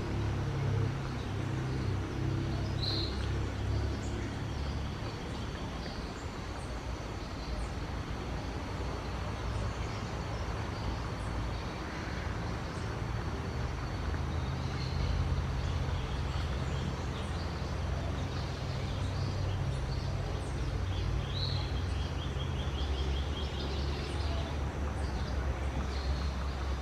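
Wild songbirds calling, with short high chirps scattered throughout and a quick trill about 23 seconds in, over a steady low rumble that is louder than the birds.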